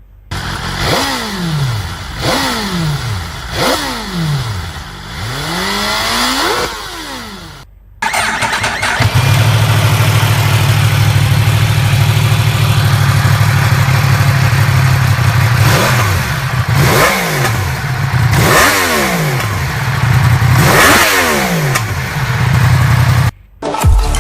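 Superbike inline-four engines revved in short blips at standstill: four quick rises and falls in pitch, then after a cut an engine catches and idles steadily, blipped four more times. The sound of a BMW S1000RR and Yamaha R1 M exhaust compared back to back.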